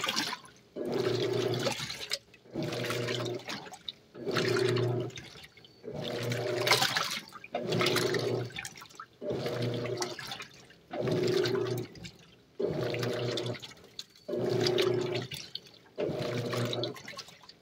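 Electrolux LAC 12 top-loading washing machine agitating a wash load in its normal agitation stage: the motor hums in even strokes about every second and three-quarters, dropping out briefly between strokes as the agitator reverses, with water sloshing throughout.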